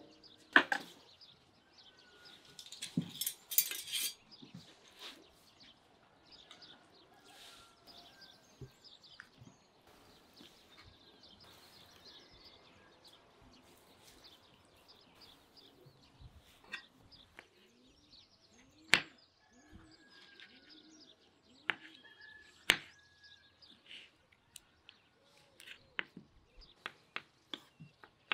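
Scattered clinks and knocks of kitchen utensils being handled during food preparation, with two sharper knocks in the second half, while birds chirp faintly.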